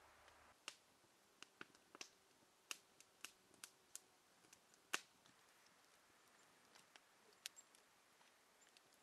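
Faint crackling of a wood campfire: irregular sharp pops and snaps, the loudest about five seconds in.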